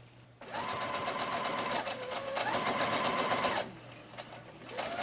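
Brother electric sewing machine stitching a seam in quilt pieces: its motor runs for about three seconds, slowing briefly about two seconds in, then stops and starts up again near the end.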